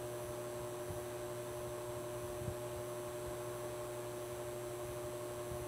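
Steady electrical hum with a faint hiss, unchanging throughout.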